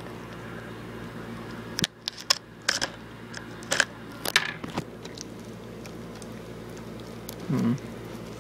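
Handling noise from a camera and a shrink-wrapped plastic DVD case: a cluster of sharp clicks and crackles from about two to five seconds in, over a steady low hum. A short low sound follows near the end.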